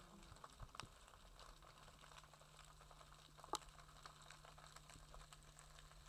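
Near silence underwater: faint scattered clicks and crackle over a low steady hum, with one sharper click about halfway through.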